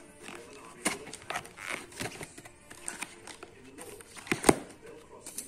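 Hands handling a cardboard box: scattered taps, rubs and scrapes on the cardboard, with one sharper knock a little after four seconds in.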